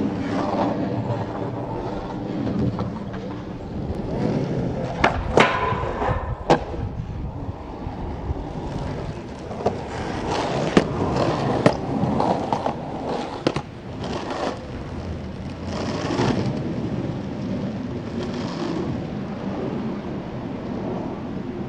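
Skateboard wheels rolling over concrete with a steady rumble. Several sharp clacks of the board striking the ground fall through the middle, about five in all.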